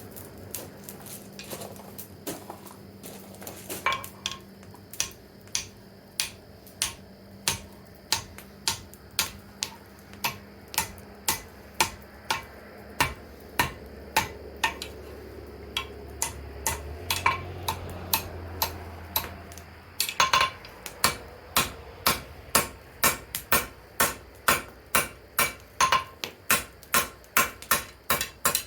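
Hand hammer striking hot steel on an anvil in a steady rhythm, about two ringing blows a second, with a short pause and then slightly quicker blows near the end, over a faint low hum.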